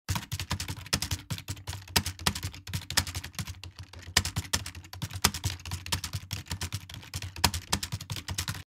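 Rapid typing on a computer keyboard: a dense, irregular run of key clicks, several a second, that starts and stops abruptly.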